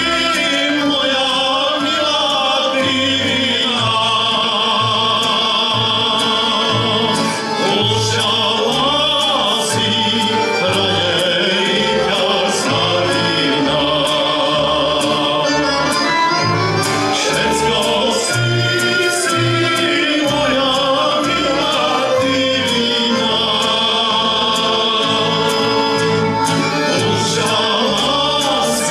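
A man singing a Slovak folk song, accompanied by a folk band of violin and accordions over a steady bass beat.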